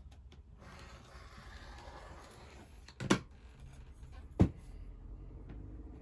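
A soft rustling hiss for a couple of seconds, then two sharp knocks about a second and a half apart, the second the loudest.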